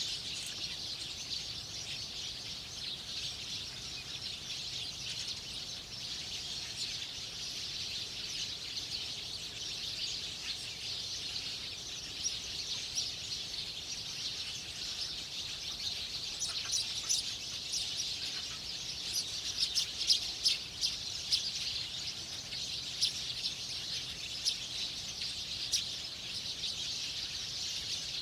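Small wild birds chirping over a steady high hiss, with short sharp chirps coming thicker and louder in the second half.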